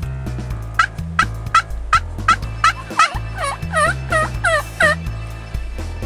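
Turkey calls: a run of about ten loud, pitched notes, short and quick at first, then longer, scooping yelp-like notes, stopping about five seconds in. Music with a steady bass line plays underneath.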